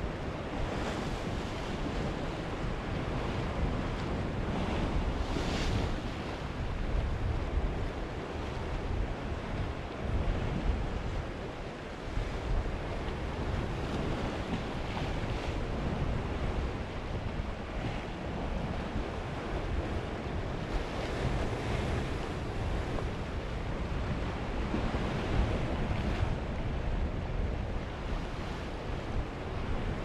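Sea waves breaking and washing over a rocky shoreline in soft swells every few seconds, with wind buffeting the microphone as a steady low rumble underneath.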